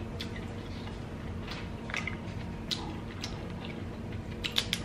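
Quiet chewing with scattered soft mouth clicks from eating crab. Near the end comes a quick run of sharper clicks as cooked Dungeness crab legs are picked up and handled, their shells clicking.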